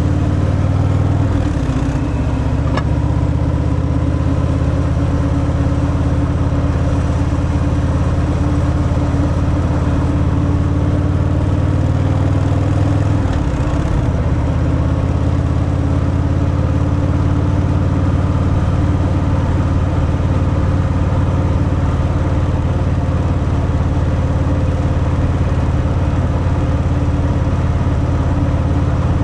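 Harley-Davidson Fat Boy's V-twin through its stock exhaust, running steadily under way. The engine note dips briefly twice, around a second and a half in and again near the middle.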